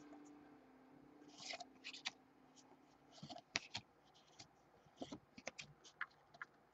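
Faint scratchy slides and light clicks of baseball cards being moved one by one by hand through a pack, at an irregular pace, starting about a second and a half in.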